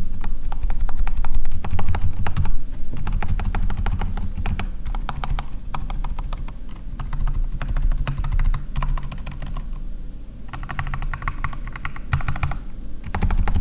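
Rapid typing on a custom mechanical keyboard fitted with Gateron Clear linear switches: fast runs of keystrokes with short pauses between them. The switches sound smooth.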